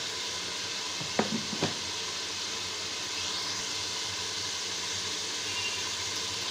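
Beef and spices sizzling steadily as they fry down in a pressure-cooker pot on a gas stove, with two short sharp knocks about a second and a half in.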